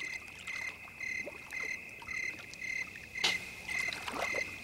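Night insect chorus: crickets chirping in an even rhythm about twice a second over a constant high trill, with a few small knocks and a sharper knock about three seconds in.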